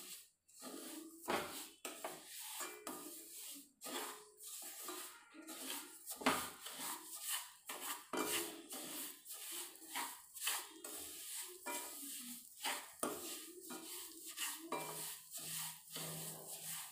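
Wooden spatula scraping and knocking against a metal kadhai in repeated, irregular strokes while semolina is roasted in ghee for halwa.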